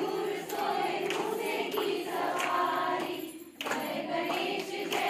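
A group of people singing a devotional puja song together in unison, with a short break between lines about three and a half seconds in.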